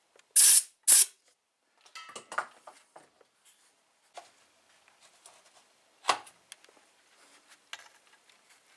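Two short, loud hissing bursts in the first second, then scattered light clicks and one sharp knock about six seconds in, from hand work with tools and parts on the gear side of a partly dismantled 125cc motorcycle engine.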